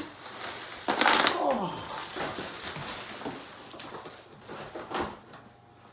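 Plastic bubble wrap being handled, rustling and crackling: a loud burst of crinkling about a second in, then scattered crackles that thin out and fade near the end.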